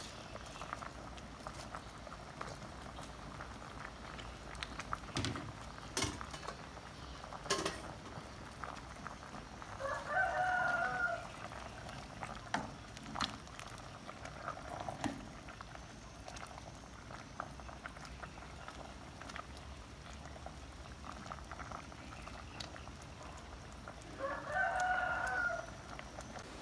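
Curry bubbling in a stainless steel pot, with a few sharp clinks of a metal ladle against the pot as it is stirred. A rooster crows twice, about ten seconds in and again near the end; the crows are the loudest sounds.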